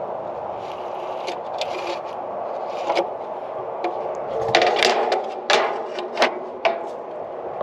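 Spirit level knocking and scraping against the steel rail of a shipping container as it is handled and moved along, a run of sharp clicks and knocks that grows louder and closer together in the second half. Steady background noise underneath.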